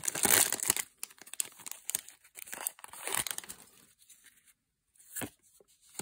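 Foil wrapper of a Magic: The Gathering booster pack crinkling and tearing as it is peeled off the stack of cards. It is loudest in the first second, then fades into lighter, scattered rustling with a few soft clicks.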